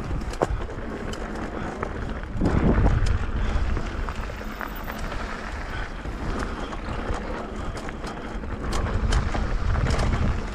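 Wind buffeting the action-camera microphone as a mountain bike rolls fast down a gravel singletrack, with tyres crunching over loose stones and sharp rattling clicks from the bike. The wind rumble swells louder twice, about two and a half seconds in and near the end.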